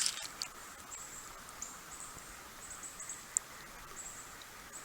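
Faint, thin, high-pitched chirping from wild animals in short broken runs, with a couple of light clicks.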